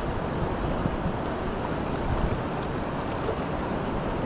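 Steady rushing noise of a flowing river, with wind on the microphone.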